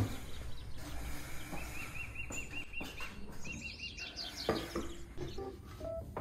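Small birds chirping in the background, with a quick run of repeated chirps at about six a second, then a light clink about two-thirds of the way through as a cup on its saucer is set down on a table.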